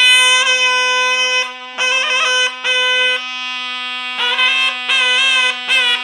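Two zurnas playing a bozlak: one steady drone note holds without a break while a free-rhythm melody goes over it in loud phrases, separated by short gaps, with bending ornaments near the end.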